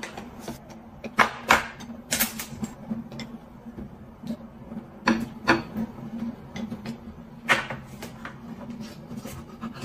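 Chopsticks and a small ladle clicking and scraping against a bowl and the rim of an electric hot pot while food is fished out of the broth: irregular sharp clicks, a few louder ones, over a faint steady hum.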